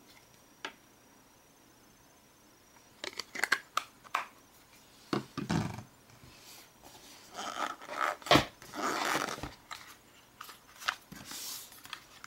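Handling of a phone's retail packaging: paper and plastic rustling and crinkling with scattered clicks and knocks, starting about three seconds in, with one sharper knock a little past the middle.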